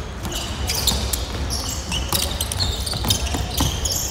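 Basketball game sounds on a hardwood gym court: a ball being dribbled, and sneakers squeaking and thudding as players run, heard in a large echoing gym.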